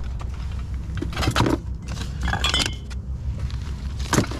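Hands rummaging through a cardboard box of odds and ends: a plastic bag crinkling and hard plastic items clinking together in a few short bursts, over a steady low rumble.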